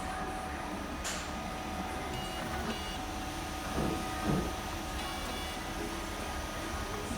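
A 3D printer running, its fan giving a steady hum while the stepper motors make short whining moves. There is a brief click about a second in and two soft bumps near the middle.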